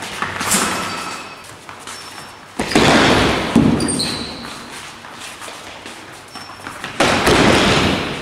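A group of fencers' feet stamping and landing together on a matted gym floor during unison lunges: two loud sudden bursts, about two and a half seconds in and again at seven seconds, each fading over about a second, with a smaller one near the start and short shoe squeaks.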